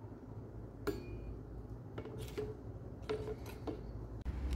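Light metallic clinks, six or so in the first three and a half seconds, some ringing briefly: a steel knife blade on its hanging wire knocking against the rim of a metal pipe acid-etching tank as it is lowered in. A low steady hum runs underneath.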